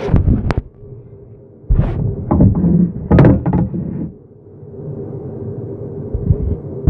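Knocks and thuds of kitchen utensils, including a metal skimmer, being handled on the counter close to the microphone. There is a pair of hits at the start, a cluster of clatter about two to four seconds in, and a last sharp thump near the end, over a steady low hum.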